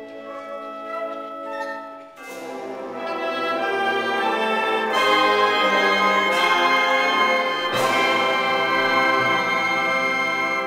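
Concert band of woodwinds and brass playing sustained chords: soft at first, then the full band with brass comes in about two seconds in and swells into loud held chords.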